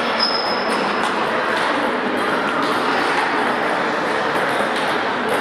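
Table tennis balls clicking irregularly off tables and paddles from several games at once in a gym hall, over a steady background of voices.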